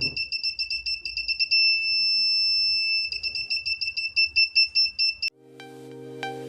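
Arduino buzzer driven by an ultrasonic distance sensor, beeping rapidly at a high pitch to signal an object close to the sensor. The beeping merges into one steady tone for about a second and a half, then goes back to rapid beeps. It cuts off suddenly just after five seconds in, and electronic music starts.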